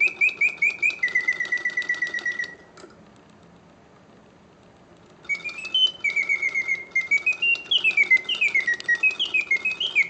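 1950s Karl Griesbaum singing bird cage automaton, its bellows-driven bird song playing in quick chirps and trills. The song stops for about two and a half seconds partway through, then starts again with notes sliding up and down: the pause feature working, which needs airtight bellows.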